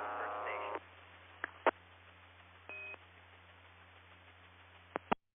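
2-meter amateur radio repeater audio: a steady buzzing tone cuts off under a second in, leaving faint hiss and a low hum with a couple of clicks. A short high beep, the repeater's courtesy tone, sounds in the middle, then two more clicks and the repeater drops out near the end.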